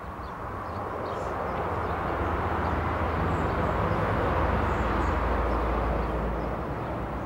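A vehicle's engine and road noise, a steady rumble that swells to a peak about four to five seconds in and then eases off, as a vehicle passes.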